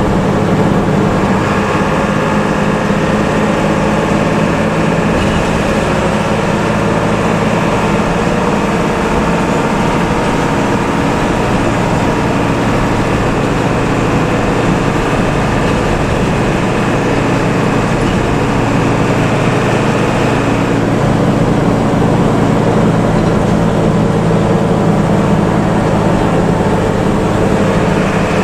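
Intercity bus engine and exhaust running steadily at cruising speed, with road and tyre noise, heard from on board. A constant low engine drone holds even throughout.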